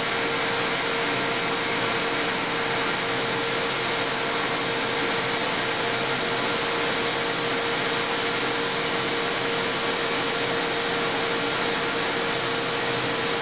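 Metal lathe running at a steady speed while a tool cuts a cast iron ring: an even whir carrying a constant whine.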